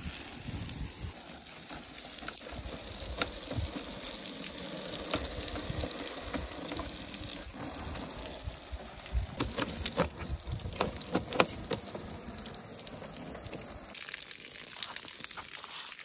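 Water from a garden hose spraying onto the wire mesh of a wooden bird cage, a steady hiss and splatter as the dirt is rinsed off. A few sharp clicks and knocks come between about nine and twelve seconds in.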